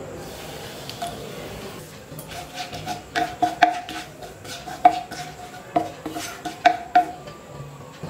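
Wooden spatula knocking and scraping against a nonstick kadai, about a dozen irregular taps, each with a short ring. The spatula is stirring a bay leaf and a dried red chilli in hot mustard oil to temper them.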